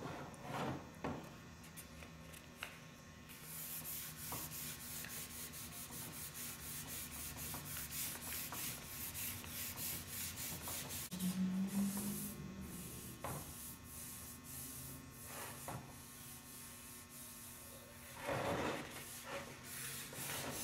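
600-grit sandpaper dry sanding a cured clear coat in quick back-and-forth rubbing strokes, several a second. The strokes stop about two-thirds of the way through and give way to lighter, intermittent scraping. The sanding knocks down orange peel and sticking-up metal flake in the clear before a final clear coat.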